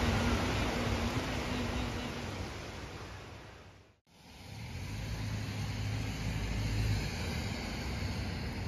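Rain falling as a steady hiss, fading out about four seconds in. After a brief break, the low rumble and tyre noise of a car driving on wet roads fade in.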